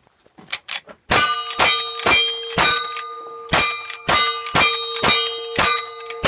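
Lever-action rifle fired in rapid succession, about nine shots at roughly two a second with a brief pause midway, each shot followed by the ringing of struck steel targets.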